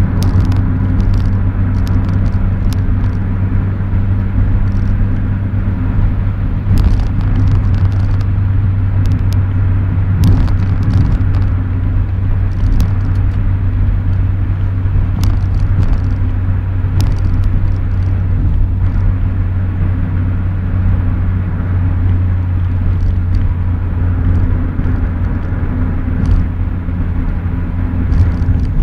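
A Renault Clio RS172's 2.0-litre four-cylinder engine drones steadily at cruising pitch, heard from inside the cabin, with tyre and road noise under it. Occasional light clicks and rattles come through over the drone.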